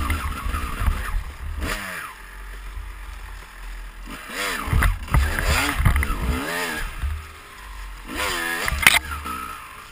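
2004 Kawasaki KX250's single-cylinder two-stroke engine under way on the trail, the revs rising and falling several times with the throttle, over a steady low rumble, with a sharp knock near the end.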